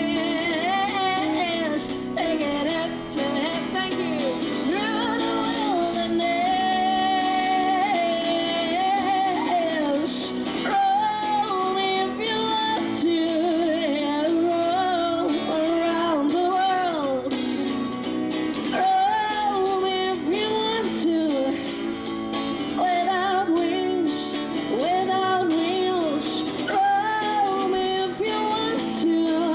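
Music: a woman singing a melodic song over sustained instrumental accompaniment.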